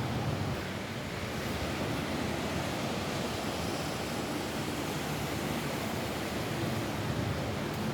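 Rain falling steadily on a roof: an even hiss with no breaks or separate impacts standing out.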